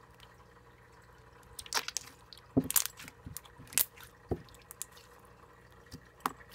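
Hand squishing and stretching a thick cream cheese slime, giving a few sharp wet pops and clicks, most of them in the middle stretch.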